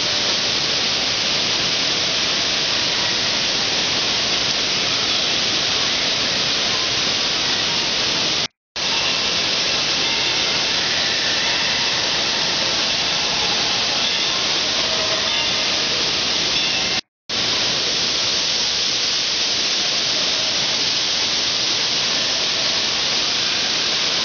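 Steady rushing hiss of water from an indoor waterpark's fountain jets and spray features, echoing in the large hall. The sound cuts out twice for a moment.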